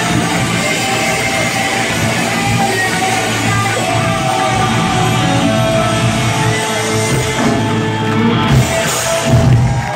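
A live hard rock band playing loud, with distorted electric guitars, drums and some singing, heard from within the audience. There is a louder burst near the end.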